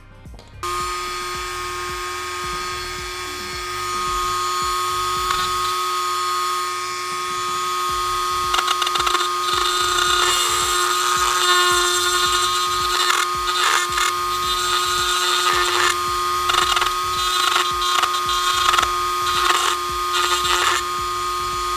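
Dremel rotary tool with a grooved bit switching on and running at a steady speed. From about eight seconds in, the bit grinds in uneven bursts against a silver ring held in pliers, cutting a damaged texture into the metal.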